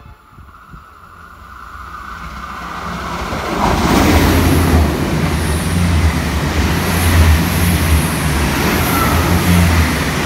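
Irish Rail Intercity Railcar (22000 Class diesel multiple unit) passing through the station at speed without stopping: the sound builds over the first four seconds, then a loud rush of wheels on rail over a steady low rumble as the carriages go by.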